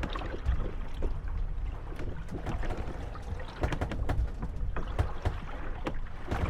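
Moored wooden gondolas rocking on small waves, bumping and creaking against each other with many short knocks and creaks over a steady slosh of water and low wind rumble.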